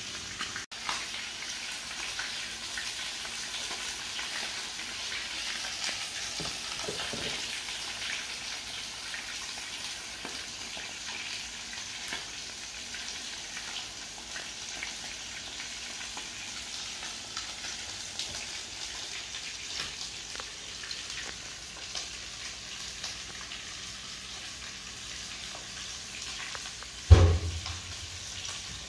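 Floured tarpon pieces shallow-frying in oil in a frying pan, a steady sizzle with fine crackling. Near the end, one loud thump.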